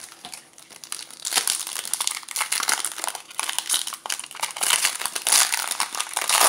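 Foil wrapper of a trading card pack crinkling loudly as it is handled and pulled open, starting about a second in.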